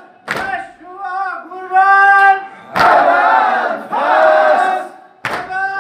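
Muharram sineh-zani mourning chant: a lead singer sings a line and a group of men answers in unison. Three loud, sharp chest-beats from the mourners fall about two and a half seconds apart.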